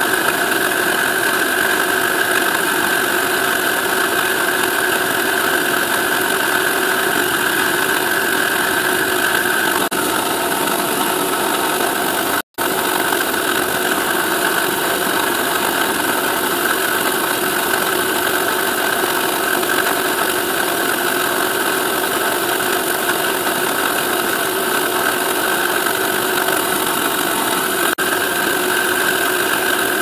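CNC milling machine spindle running a 1.8 mm slot drill through a metal mould plate, cutting the flanges: a steady machining whine over dense cutting noise. It cuts out for a split second about twelve and a half seconds in.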